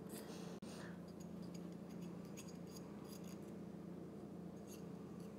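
Faint scraping and light scratchy ticks of a metal lab spatula against aluminum wire, knocking the deposited copper off it, over a steady low hum.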